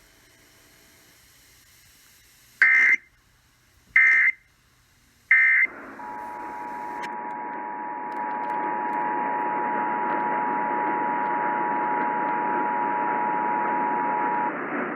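Three short bursts of Emergency Alert System digital data tones, about a second and a half apart. About a second later comes the EAS two-tone attention signal, a steady dual tone near 850 and 960 Hz heard over radio hiss, which lasts about eight seconds.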